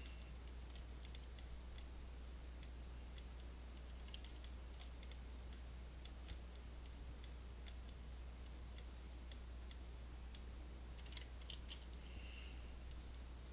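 Faint computer mouse clicks, scattered and irregular, with a quick run of clicks near the end, over a steady low hum.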